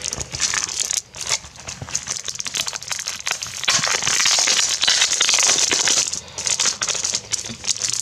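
Plastic packaging crinkling and crackling as it is handled, with a denser stretch of crinkling a little before the middle.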